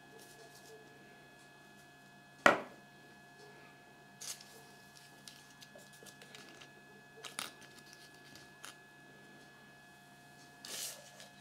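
Small plastic toy figures being handled and set down on a tabletop: one sharp click about two and a half seconds in, then a few lighter taps and a short rustle near the end, over a faint steady hum.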